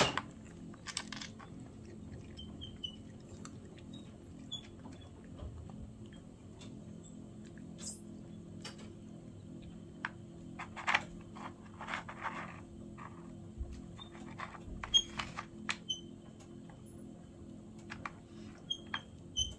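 Cats working a plastic treat puzzle: scattered irregular clicks and knocks of plastic caps and treats being pawed and nosed, with treats crunched in between.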